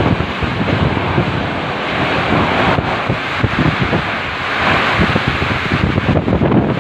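Heavy monsoon downpour in strong gusting wind: a dense, steady rush of rain, with the wind buffeting the microphone in uneven gusts.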